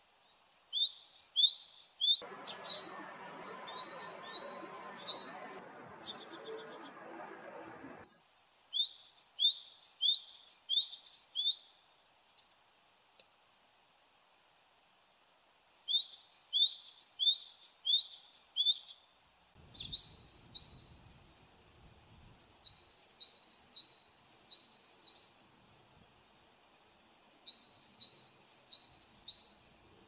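Japanese tit singing: bouts of a quickly repeated phrase of high notes, each swept downward, lasting a few seconds each with short pauses between. A steady lower rushing noise sits under the song for several seconds near the start, with a brief rapid ticking about six seconds in.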